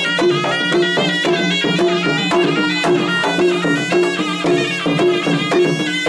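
Malay gendang silat ensemble playing: a serunai, a double-reed oboe, carries a wavering held melody over two gendang drums beating a steady repeating pattern, the music that accompanies a silat dance.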